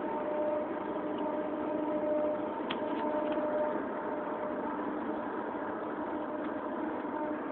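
A steady, unexplained droning hum in the sky, several held tones sounding together and swelling and fading slightly, with a light click about three seconds in.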